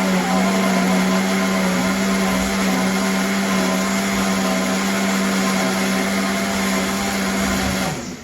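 Countertop blender running steadily, blending chunks of cantaloupe and carrot with water into juice, with a constant motor hum. It switches off near the end.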